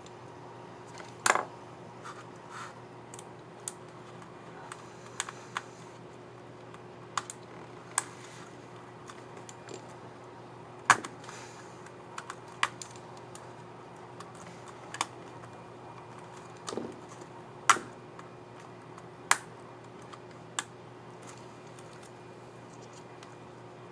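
Irregular plastic clicks and snaps from a Dell XPS 15 9550 laptop keyboard as a keycap and its scissor mechanism are worked back into place, a few of them sharper snaps.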